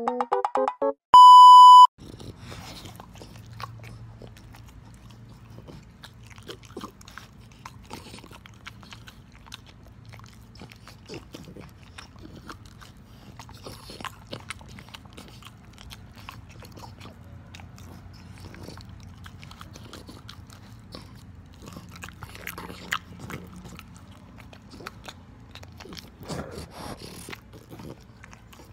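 A synth jingle ends in a loud, steady beep about a second in. Then a French bulldog eats banana from a hand: wet chewing and lip-smacking clicks over a low steady hum.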